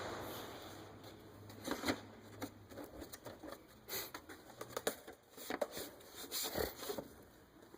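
Scattered light clicks, taps and knocks of hard plastic trim and small parts being handled and fitted into place.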